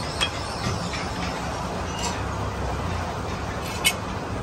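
A few light clicks and knocks of steel core laminations and a wooden clamp being handled while a welding transformer is assembled, the sharpest click near the end, over a steady background of low hum and noise.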